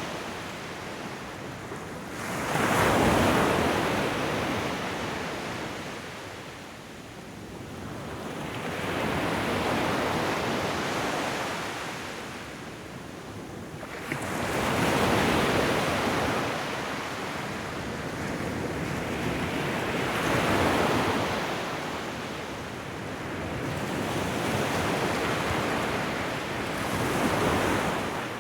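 Ocean waves breaking on a shoreline: a wash of surf that swells and fades about every five to seven seconds, five times in all.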